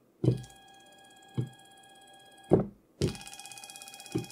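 Leadshine integrated closed-loop NEMA 17 stepper motor driven by step pulses from an Arduino: it starts with a thunk, runs with a steady whine for about two seconds and stops with a thunk. Half a second later it starts again in the opposite direction with a louder, buzzier whine. A small click falls midway through each run.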